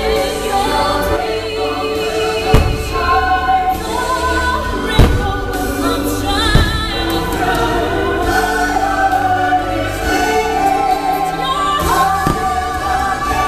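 Fireworks show soundtrack: choral singing with orchestra, while firework shells go off with sharp bangs several times, the loudest a few seconds in and about five seconds in.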